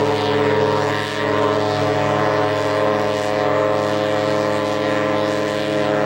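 Ship's horn sounding one long, deep, steady blast.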